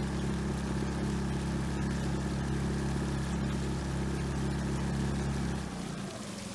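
6 hp Yamaha outboard motor pushing an inflatable skiff at steady speed. The engine note holds even, then drops away abruptly near the end, leaving water noise.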